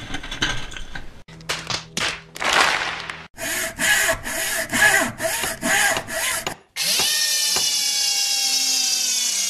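A chunk of rubble crashing into a metal skip, then a logo sound effect of woodworking tools: a few scraping strokes, a run of about eight hand-saw strokes at two or three a second, and a power drill running with a steady whine.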